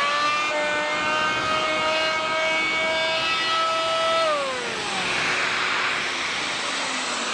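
Fein MultiMaster oscillating multi-tool fitted with a round sanding pad, running at speed with a steady, high motor whine after spinning up. About four seconds in the whine drops in pitch and fades, leaving a steady rushing noise.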